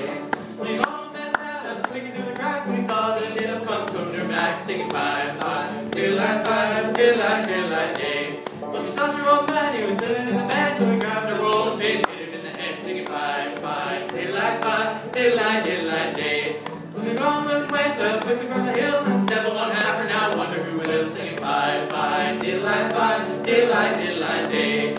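Acoustic guitar strumming while a kazoo buzzes out the tune in a wordless instrumental break of a folk song.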